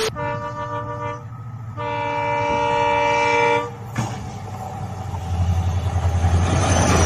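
Diesel locomotive sounding its multi-tone horn in two long blasts, the second longer than the first, then the deep rumble of its engine growing louder as it approaches.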